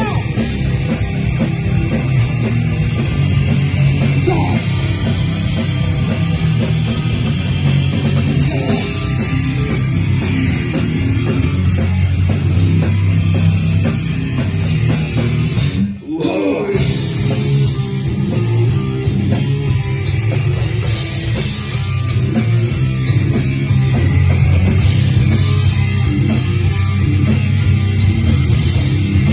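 Heavy metal band playing live: distorted electric guitars over a drum kit, loud and dense, with a brief stop about halfway through before the band comes back in.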